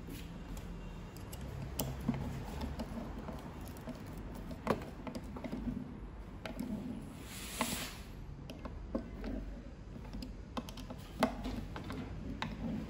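Hand screwdriver driving small screws into a plastic motor mount: irregular light clicks and ticks as the screws turn and the bit seats.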